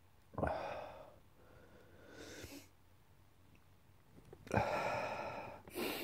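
A man sneezing in an allergy attack: two sudden sneezes, one about half a second in and one a little after four and a half seconds, with a breath drawn in between and a quick sniff at the end. He blames the attacks on dust and mold in the house.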